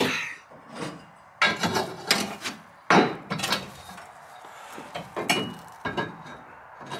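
Irregular knocks and clunks of metal parts and tools being handled and knocked about, the loudest about a second and a half in and again about three seconds in, with smaller knocks later.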